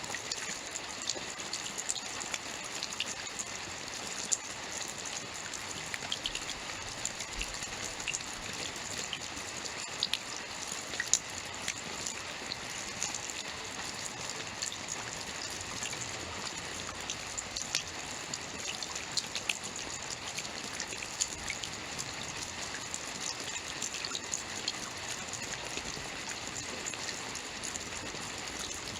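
Steady rainfall, an even hiss scattered with many small drop impacts.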